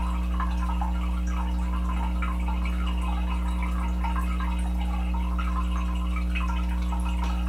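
A steady low hum in a small tiled bathroom, with faint, scattered drips of water.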